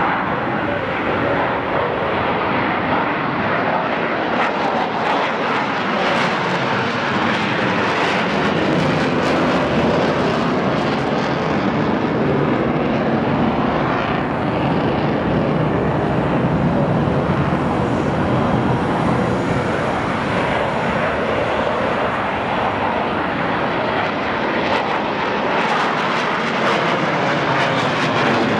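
Boeing 737-500's CFM56 jet engines running during pushback: a steady, loud roar with a thin high whine above it.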